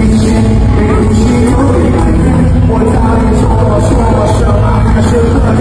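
Mandopop song performed live at a concert, loud and steady with heavy bass and a voice singing over it.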